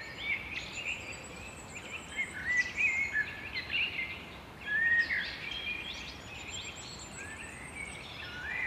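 Several songbirds singing at once, short chirps, trills and whistled notes overlapping throughout, over a faint steady background hiss.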